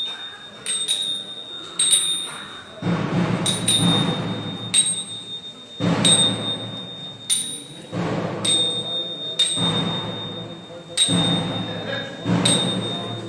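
A metal bell struck repeatedly, roughly once every second, each stroke ringing on high and clear, with several one- to two-second bursts of low drumming.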